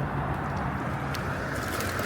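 Steady rumble of a small electric bike riding along beside road traffic, with a few light clicks and rattles.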